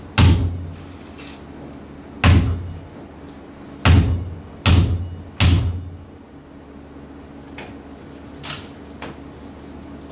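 A series of heavy, dull thuds at uneven intervals, five loud ones in the first six seconds, each dying away in a short echo, then two or three fainter knocks near the end, over a low steady hum.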